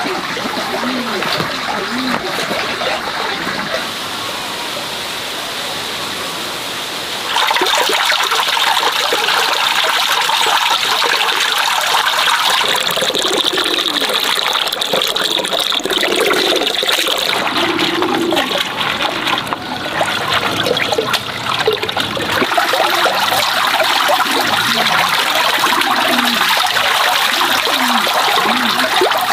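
Water pouring steadily from a bamboo pipe into a plastic basin, with splashing as pumpkin seeds are rubbed and rinsed by hand in a woven bamboo basket. It gets louder about seven seconds in.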